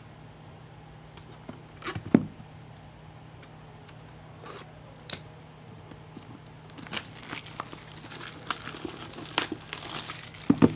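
Crinkling and tearing of a trading card pack wrapper being opened by hand, with scattered light clicks of cards handled; the crackling grows busier in the last few seconds.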